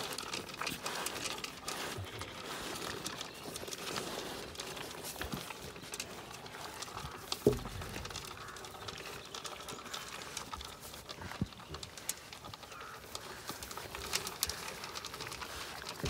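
Zwartbles sheep crunching feed pellets and nosing them across a galvanised metal trough: a dense run of small crunches and clicks, with one louder knock about halfway through.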